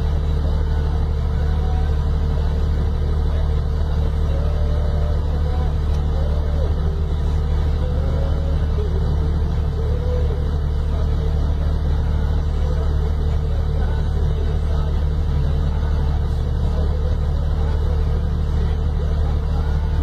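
Mercedes-Benz tipper truck's diesel engine running steadily with a deep, even rumble while it powers the hydraulics raising the dump body.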